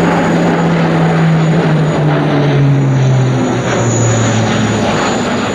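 Airbus A400M's four turboprop engines and eight-bladed propellers droning loudly as the aircraft passes low overhead, the propeller hum falling steadily in pitch as it goes by.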